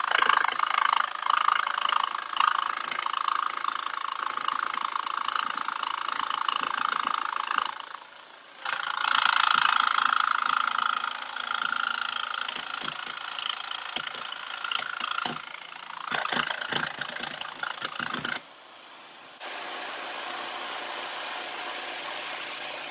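Jigsaw with an older metal-cutting blade cutting thin sheet metal, including spot welds, with a loud, harsh, steady buzz. The cut pauses briefly about eight seconds in, then resumes, and near the end the sound drops to a quieter steady level.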